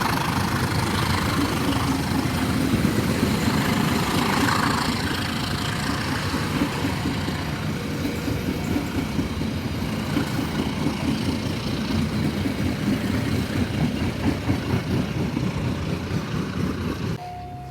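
A train passing close by: a steady rumble of wheels on rails with rapid clattering that grows more pronounced in the second half. It cuts off suddenly near the end.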